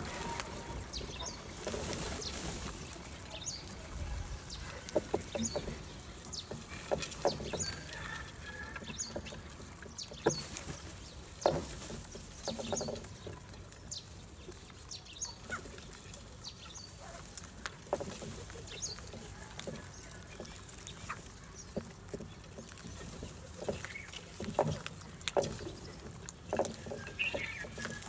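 A flock of house crows feeding at clay dishes of grain: scattered short calls mixed with sharp, irregular clicks of beaks pecking at the dishes.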